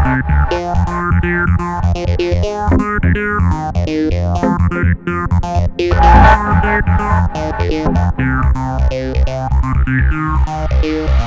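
Electronic music: synthesizer and keyboard parts playing quick repeated notes over a steady bass beat, the bass getting heavier about six seconds in.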